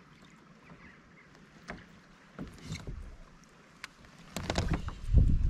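Handling noise on a fishing kayak: a few light clicks and knocks, then from about four seconds in a much louder low rumble with rattling clicks.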